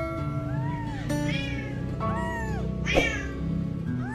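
A very young, nearly hairless kitten mewing over and over: a series of short, high mews, each rising then falling in pitch, with the loudest about three seconds in.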